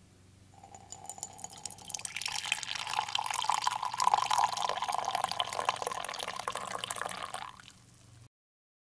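A dark drink poured in a steady stream into a ceramic mug, the splashing tone rising slightly in pitch as the mug fills. The pour tails off near the end.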